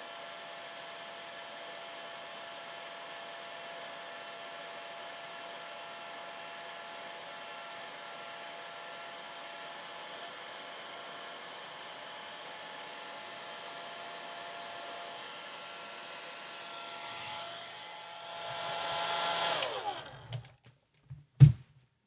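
Handheld hair dryer running steadily: an even fan hiss with a constant motor whine. Near the end it swells louder, then is switched off and the whine falls away as the motor spins down, followed by a single short knock.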